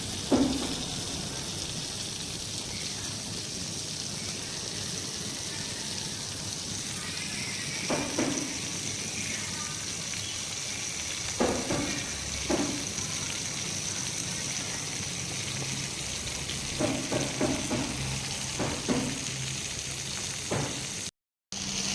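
Fish frying in oil on a tawa, a steady sizzle, with a few short louder knocks or scrapes now and then.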